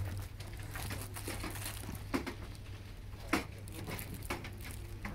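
Loose plastic film crinkling and rustling on a wooden picture frame as it is handled and lifted out of a cardboard box with bubble wrap, with a couple of light knocks about two and three seconds in.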